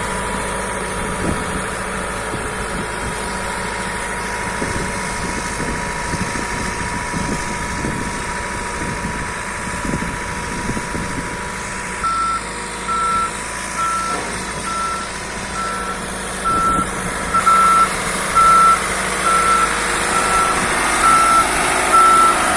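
Construction machine's engine running steadily. About halfway through, a reversing alarm starts beeping, about three beeps every two seconds: the machine is backing up.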